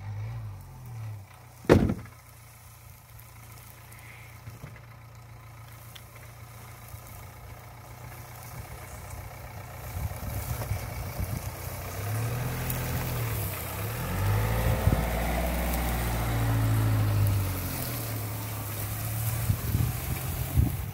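Dacia Duster SUV crawling at low engine speed over a rough grassy track, its engine and tyres growing louder as it approaches and passes close by. A single sharp knock about two seconds in.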